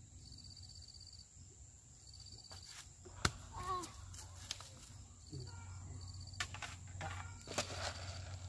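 Insects chirping in short repeated trains over a steady high buzz, with a single sharp click about three seconds in and a brief call just after it; from about two-thirds of the way through, scattered clicks and rustling of handling grow louder.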